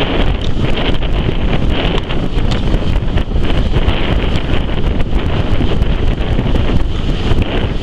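Heavy wind buffeting on the microphone, held out of the window of a moving railway carriage, over the steady rumble of the train running along the track.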